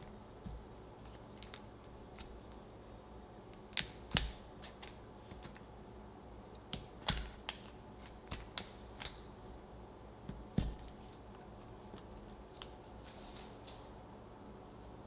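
Kitchen knife slicing through a block of butter and tapping down on a wooden cutting board: scattered soft cuts and sharp taps, the loudest about four seconds in and again near eleven seconds.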